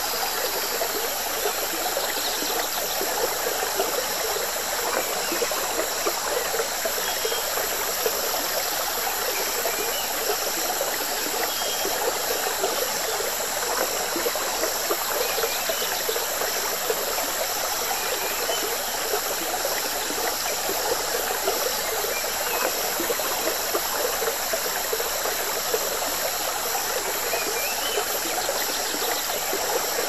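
River water flowing steadily, a continuous trickling, babbling wash with no break, with faint short high chirps scattered through it.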